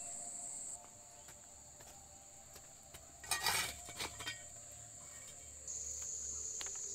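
Insects drone steadily at a high pitch, the sound shifting abruptly as the scene changes. About three seconds in, a short loud scraping rattle and a few clicks come as glowing coals in a clay fireplace are raked with a stick.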